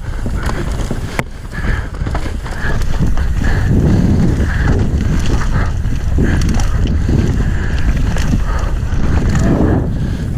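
Wind rushing over a helmet-mounted camera's microphone, with tyre noise and the rattle and knocks of a mountain bike descending a dirt forest trail at speed.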